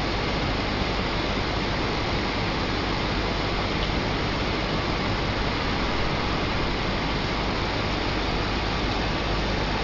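Steady even hiss with a faint low hum underneath, unchanging throughout.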